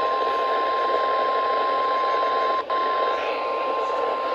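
NOAA Weather Radio 1050 Hz warning alarm tone: one steady, unbroken high tone over radio static hiss, which drops out for an instant a little past halfway. It signals that a warning message is about to be read.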